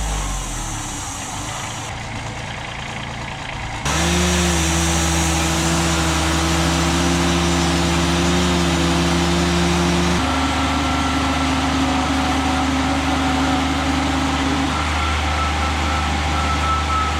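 A motor engine running steadily, heard in a few cut-together stretches, with a thin higher whine joining about ten seconds in.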